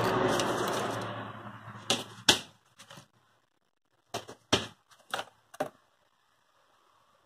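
Rustling that fades over the first two seconds, then about six sharp wooden clacks and knocks, as the thin wooden strips of a model boat kit are handled against the plywood sheets.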